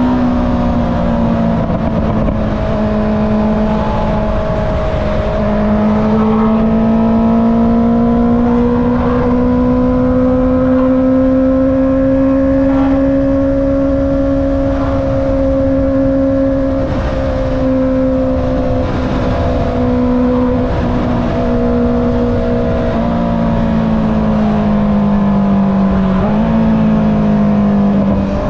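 Honda CB650R's inline-four running through an Akrapovic exhaust while riding at a steady pace, its pitch slowly rising and falling with a few small throttle or gear changes, over wind and road noise.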